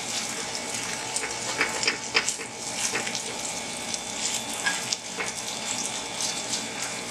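Grated kohlrabi and egg mixture frying in butter and olive oil in a skillet: a steady sizzle, the sign that the oil is hot enough, with crackles and light scrapes of a metal spoon pressing the mixture into an even cake.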